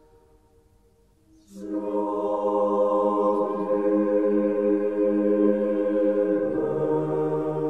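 Choir music: after a brief hush, voices come in about a second and a half in on a long held chord, and the lowest part steps down near the end.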